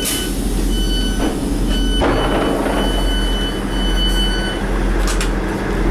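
Door warning beeps of a Class 159 diesel multiple unit: a repeated high beep, about one a second, that stops a little past halfway. A rush of noise comes in about two seconds in as the passenger door opens, over the steady rumble of the train's idling diesel engine.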